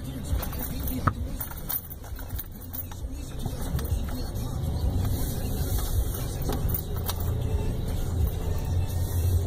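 Vehicle driving over rough off-road ground, heard from inside the cabin: a low engine and tyre rumble that grows louder about halfway through, with scattered clicks and rattles.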